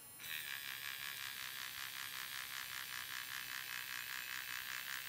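3D Simo pen's filament-feed motor running with the 3D printing nozzle tool as it extrudes PLA filament: a rapidly pulsing mechanical buzz that starts about a quarter second in.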